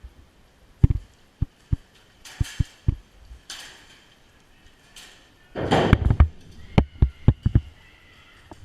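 Footsteps thudding close to the microphone at an uneven pace, with bursts of rustling in between. The loudest stretch is a burst of rustling with quick thuds about six seconds in.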